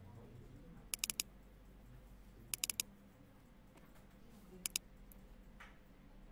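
Computer mouse buttons clicking in quick groups of two to four, about a second in, near the middle, and again past four seconds: rapid double-clicks opening folders. A low steady hum runs underneath.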